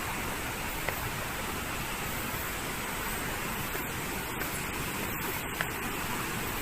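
Steady rushing of a nearby waterfall, an even wash of water noise, with two faint ticks about a second in and near the end.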